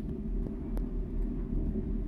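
ED4M electric multiple unit running, heard from inside the passenger car: a steady low rumble with a few faint clicks.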